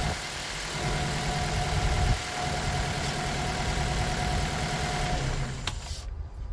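Mitsubishi Colt 1.3-litre four-cylinder petrol engine idling rough, running on three cylinders: cylinder 4 is misfiring from a failed ignition coil. The running sound stops suddenly about six seconds in, just after a click.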